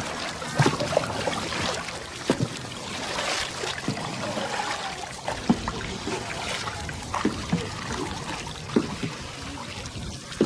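Wooden paddles stroking through water beside small wooden canoes: water trickling and dripping off the paddle blades, with irregular short splashes and clicks.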